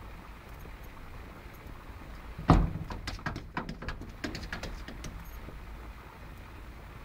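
A cat thumps hard against a glass door about two and a half seconds in, then a quick, irregular run of taps and knocks follows for about two seconds.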